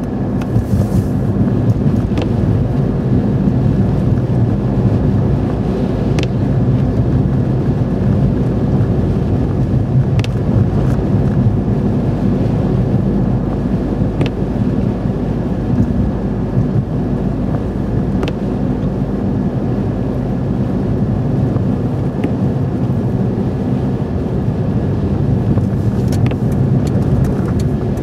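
Car cabin noise while driving on a snow-covered road: a steady drone of engine and tyres, with a faint sharp click about every four seconds.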